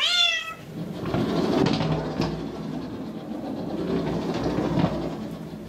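Bengal kitten giving one short falling meow, then a homemade cat exercise wheel turning under her steps with a steady low rolling noise that fades near the end.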